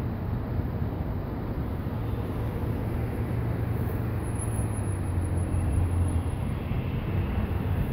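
Car driving past on the road, a steady low rumble of tyres and engine that swells a little in the middle.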